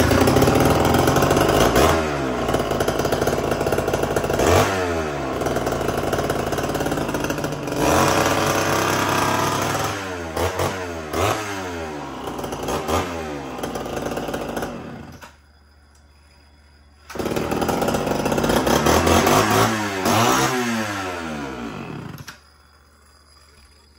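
Gas chainsaw running with its chain removed, revved up and down over and over. It drops out for about two seconds partway through, then runs and revs again before stopping shortly before the end.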